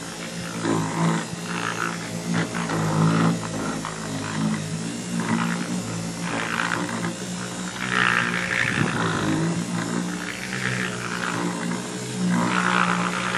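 Small power-tool motor running with a steady drone that wavers in pitch under load, typical of buffing a headlight lens with rubbing compound.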